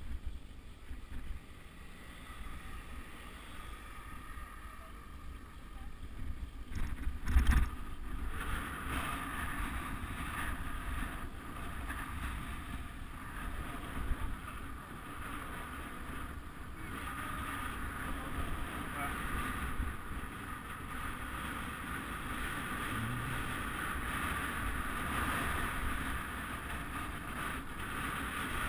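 Wind rushing over the microphone of an action camera carried on a moving road bike, with tyre noise on asphalt. One sharp knock about seven seconds in, and the rush grows louder through the second half.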